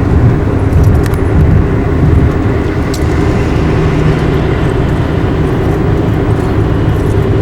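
Steady road and engine rumble of a vehicle driving along a highway, heard from inside the cabin, with a few faint clicks.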